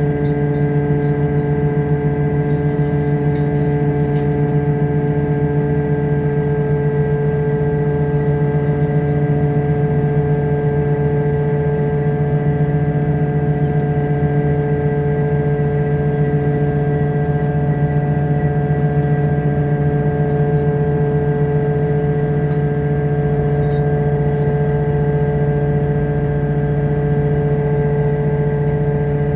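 Fishing boat's engine running at a steady speed, a constant drone with a steady hum.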